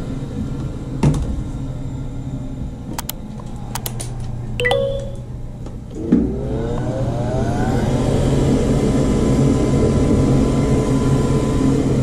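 Gas furnace cabinet humming steadily, with sharp metallic clicks from handling. About six seconds in, a thump, then a furnace motor spins up, its whine rising over about two seconds and then holding steady.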